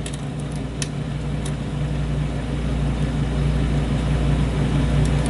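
A steady low hum that grows a little louder, with a few faint sharp clicks of a hook pick working the pins of a challenge lock cylinder, several in the first second and a half and one near the end.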